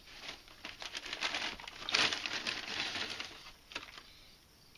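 Lay's potato chip bag crinkling as a hand rummages inside it for a chip, loudest about two seconds in.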